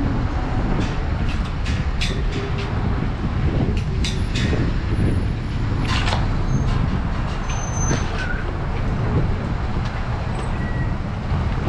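Steady low rumble of road traffic, with scattered light clicks and a short hiss about six seconds in.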